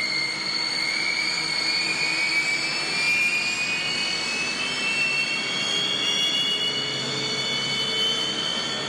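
Jet airplane taxiing: its turbine engines run with a steady rush and a high whine that slowly rises in pitch.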